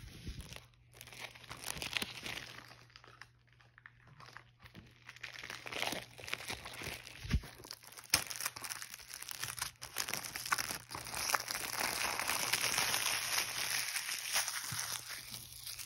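Thin plastic shrink wrap being peeled off a Blu-ray case and crumpled in the hand: irregular crinkling and crackling with a few sharp clicks, denser and louder in the second half.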